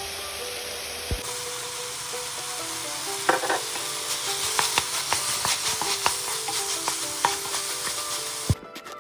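Minced pork with tomato and onion sizzling in a frying pan, with a wooden spatula stirring and scraping against the pan from about three seconds in. The sizzle cuts off abruptly near the end.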